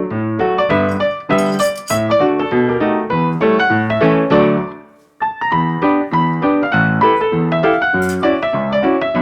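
Background piano music with a steady rhythm of notes. It fades out about four and a half seconds in and starts up again a moment later.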